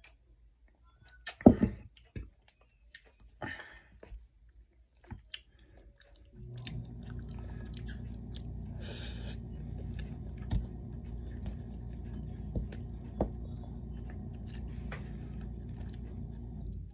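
Close-up mouth sounds of a man chewing a mouthful of biryani, with sharp wet smacks, the loudest about a second and a half in. About six seconds in a steady low hum starts, and it cuts off suddenly near the end.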